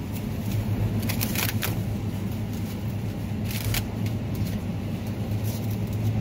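Steady low hum of supermarket refrigeration and air handling, with a couple of brief rustles about a second in and again past three seconds.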